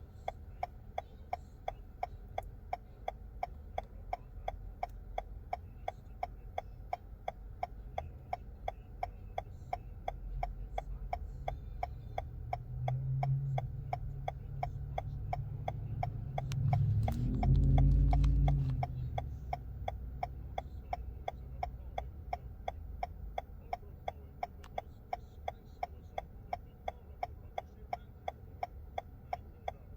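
Car turn signal clicking steadily, about two to three clicks a second, over a low hum. A low rumble swells past the middle, loudest a little after halfway.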